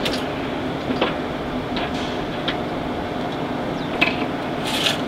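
Steady mechanical hum, with a few light metal clicks and knocks as a MerCruiser sterndrive is worked off its bell housing on the boat's transom.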